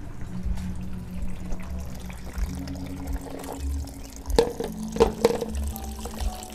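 Water running from a bamboo pipe into a plastic basin, with three sharp knocks a little past the middle as a pan and bowl are handled at the basin.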